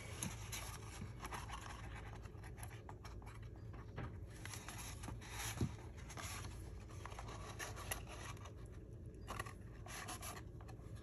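Faint scraping and rustling of cardstock being handled and pressed together by hand as a glued box flap is set, with a few light ticks.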